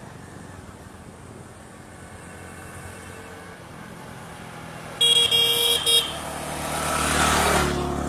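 A motor vehicle approaching and passing close by, its horn sounding in a quick run of short toots about five seconds in.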